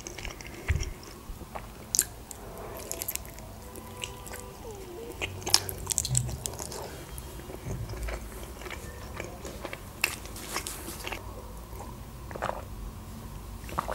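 Close-miked mouth sounds of eating a boiled khinkali dumpling: soft bites, wet chewing and lip smacks in scattered, irregular clicks.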